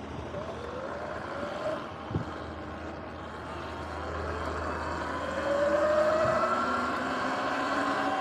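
Sur-Ron X electric dirt bike's motor whining and rising in pitch as the bike pulls away and speeds up, with tyre and wind noise. A single thump about two seconds in, and everything gets louder from about five seconds as the bike gathers speed.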